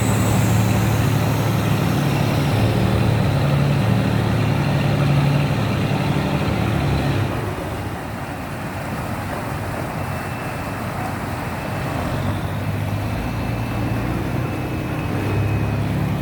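Boat engine running hard under load, pulling a three-deck vessel stuck in mud. The low drone eases off about halfway through and builds again near the end.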